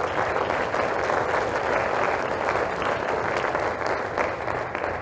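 Audience applauding, a steady round of clapping that swells in at the start and dies away just after.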